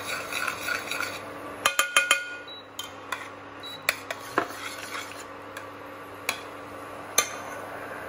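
Metal spoon stirring and scraping in a small stainless steel saucepan of broth, melting palm sugar into it. A cluster of sharp ringing clinks comes near two seconds in, then a few scattered single clinks, over a faint steady low hum.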